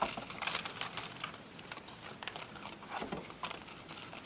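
Raccoons moving about on a wooden deck and on a seated man: irregular light pattering, scratching and rustling, with a few louder knocks near the start, about half a second in and about three seconds in.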